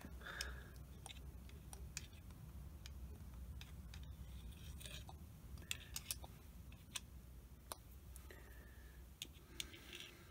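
Faint, scattered light clicks and taps of metal lathe apron parts being handled and fitted, over a low steady hum.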